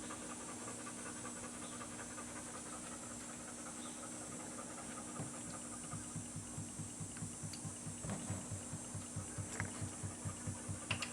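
Gear oil glugging out of the drain hole of a BMW R1150GS six-speed gearbox into a drain pan. It starts as a faint steady trickle, then from about halfway turns into a regular pulsing of three to four glugs a second, with a few light clicks near the end. The glugging shows that air cannot get in through the closed filler plug.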